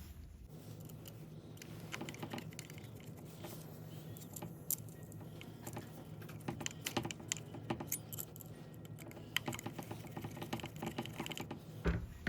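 Small screws being driven into a drone's landing gear by hand, giving irregular light metallic clicks and ticks of the screwdriver and parts.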